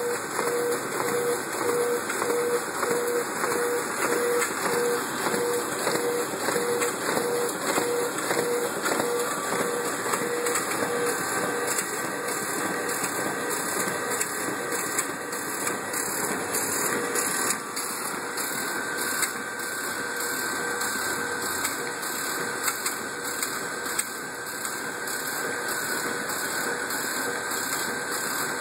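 RISO printer with its FeedMax feeder and paper conveyors running, sheets feeding through continuously with a dense rapid ticking over a steady mechanical whirr. A pulsing tone sounds through the first third, and a thin whine comes in a little past halfway.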